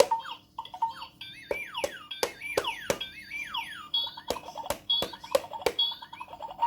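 Electronic baby toy playing its tune and sound effects: a steady beat of clicks about three a second under beeping tones, with a run of quick falling tones in the middle.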